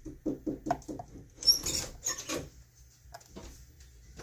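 Dimple lock pick and tension bar working the pins of an ISEO R6 six-pin dimple lock: quick scratchy taps, about four or five a second, then a brief louder rustle a second and a half in, and a few scattered ticks.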